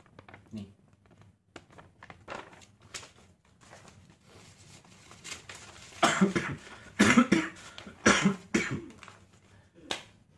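A man ill with COVID-19 coughing: a cluster of four or five loud coughs over about three seconds, past the middle, and one more just before the end. Before the coughs, a sheet of paper rustles softly as it is handled.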